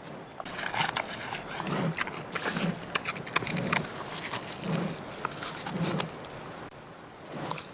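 Mountain gorilla feeding on leafy stems: crackling and crunching of plant matter, with a low sound repeating about once a second as it chews.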